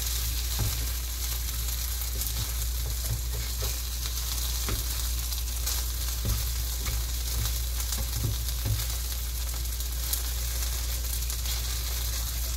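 Mashed potato pancake with onion and garlic sizzling steadily in a frying pan, with scattered light taps and scrapes of a fork and spatula against the pan as it is pushed and shaped.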